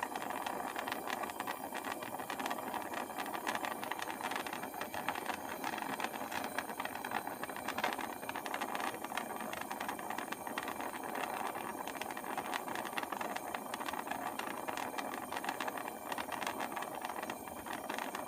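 Gas torch flame burning steadily under a mesh trivet with an even, rushing hiss. It is firing transparent enamel on copper past the glossy stage, held on to burn off the oxides under the glass.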